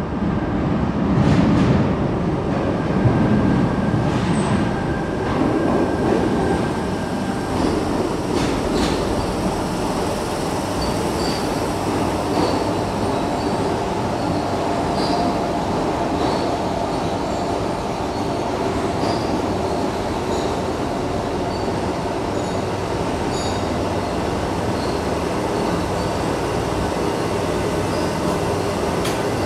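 A Tangara double-deck electric train pulls into an underground platform and brakes to a stop. The running rumble is heaviest in the first few seconds, with a few clicks from the wheels and short high brake squeals repeating, echoing in the tunnel.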